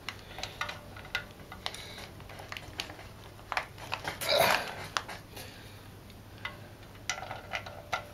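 Hand tools on the shift drum bolts of a Honda CL160 engine's aluminium crankcase: a steel wrench and socket give irregular small metallic clicks and clinks as the bolts are tightened. A louder scraping rustle comes about four seconds in, and there are a few ringing clinks near the end.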